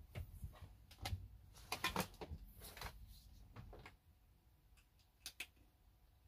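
Light plastic clicks, knocks and rustling as a dashboard panel with its wiring is handled, busiest in the first four seconds, then a couple of sharp clicks a little past five seconds.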